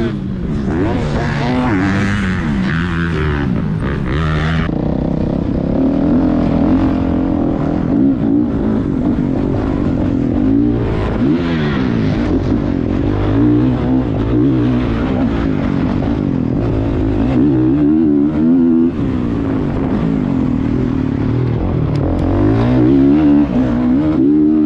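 Dirt bike engine revving hard, its pitch climbing and dropping again and again as the rider accelerates, shifts and backs off around the track. A busier, noisier stretch in the first few seconds eases off about five seconds in.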